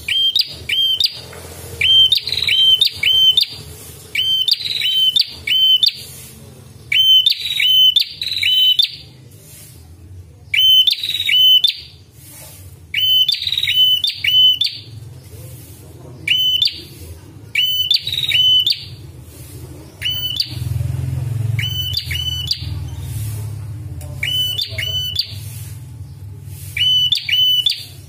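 Tailorbird (prenjak) singing loudly: sharp, clipped chirping notes in quick runs of two to four, each run following the last after a second or two, over a steady low hum.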